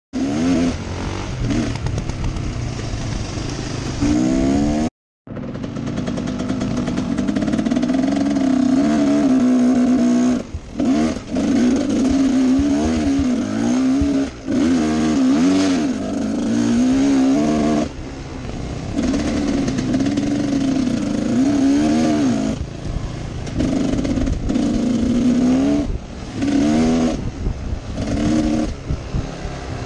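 Husqvarna WR 250 two-stroke enduro motorcycle engine heard from on the bike, revving up and down over and over as it is ridden along a trail. The sound cuts out completely for a moment about five seconds in.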